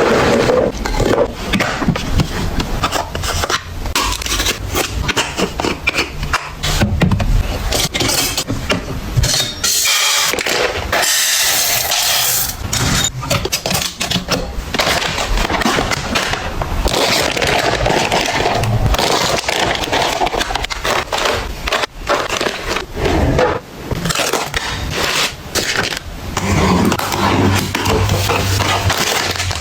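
Items and packaging being handled and set down: a continuous run of clicks, scrapes, rustles and crackles.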